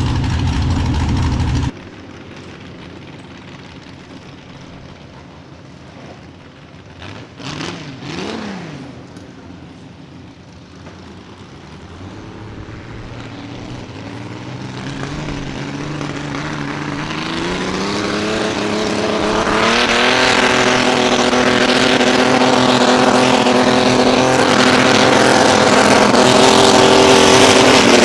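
Mini rod pulling tractor engine revving up: its pitch and loudness climb steadily over several seconds, then it holds at high revs, running loud. It is preceded by a louder engine sound that cuts off abruptly just after the start.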